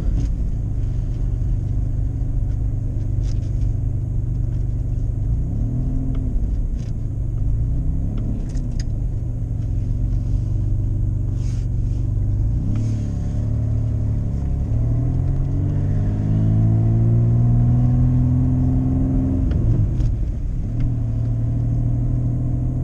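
1986 Pontiac Fiero GT's 2.8 L V6 running as the car is driven, heard from inside the cabin. Its pitch rises and falls a few times as the car speeds up and slows.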